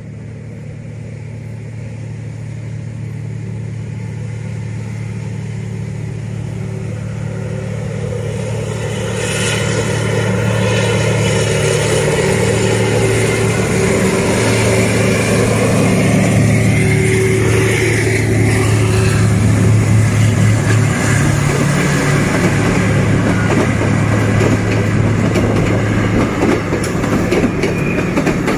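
A D19E diesel-electric locomotive hauling a passenger train, its diesel engine running with a steady low hum that grows louder over about ten seconds as it approaches, then passes close by. Near the end the engine sound drops away and the passenger coaches roll past with wheel noise on the rails.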